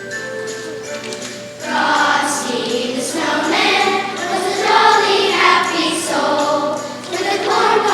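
A choir singing. It comes in loudly about a second and a half in, over held instrumental notes.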